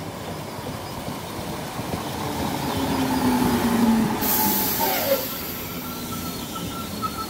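Great Northern electric multiple unit running in along the platform and slowing, its running rumble loudest a few seconds in, with whining, squealing tones that drop in pitch as it slows. A sharp hiss starts suddenly about four seconds in.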